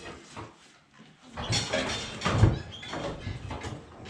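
Blacksmith's coal forge reheating the steel: a steady rush of air from the bellows starts about a second in, with irregular knocks of iron, the loudest in the middle.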